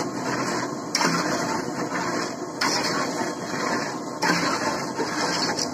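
Thin batter being stirred and beaten in a large metal bowl, a louder stroke coming about every second and a half over steady noise.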